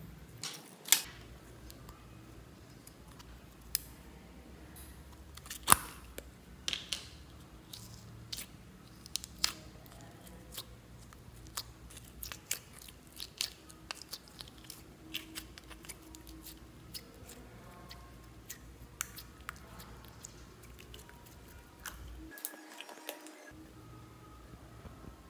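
Fingers poking and pressing store-bought slime in small plastic tubs: irregular sharp clicks and soft sticky squishes, two of them much louder than the rest.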